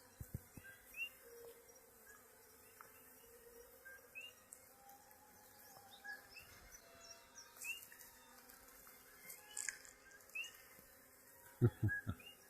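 Honeybees humming faintly around an open top-bar hive, with a few sharp knocks near the end.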